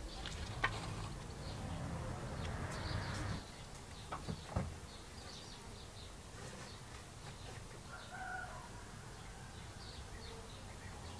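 Birds calling in the background, a few short calls, with several sharp clicks and light taps as small lure parts are handled on a wooden board.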